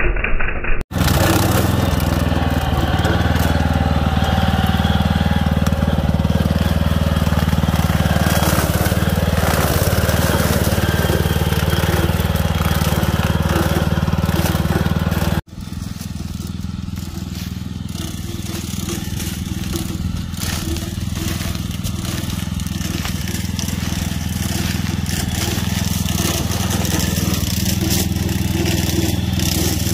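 Walk-behind cultivator's small engine running steadily while its brush-cutter-type attachment cuts through standing corn stalks. The sound breaks off sharply about a second in and again about halfway through, then comes back softer and slowly grows louder.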